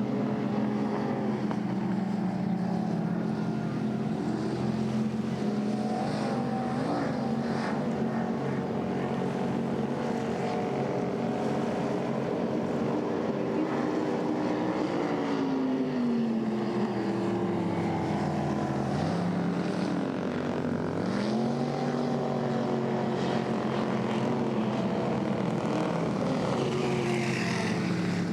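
Race boat engines running with several engine tones at once; one drops in pitch over a few seconds past the middle, then climbs again.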